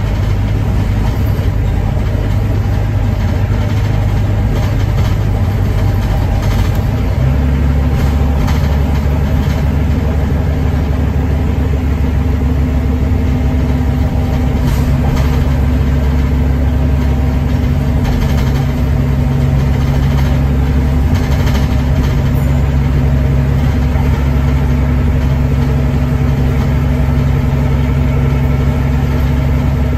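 Volvo D9B 9.3-litre diesel engine of a Volvo B9TL double-decker bus, heard from inside the upper deck, running steadily. About seven seconds in its note shifts to a lower, heavier drone that then holds steady.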